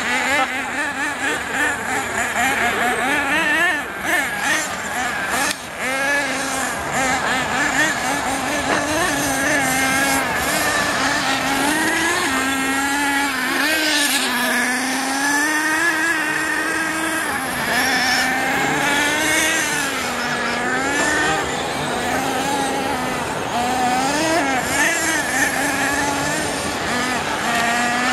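Several radio-controlled monster trucks racing, their motors running at high pitch and rising and falling constantly as they accelerate and slow through the course.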